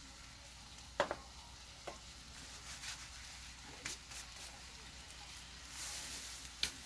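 Tilapia fillets frying in a pan with a faint, steady sizzle. A few sharp clicks and knocks of kitchen items being handled cut in, the loudest about a second in.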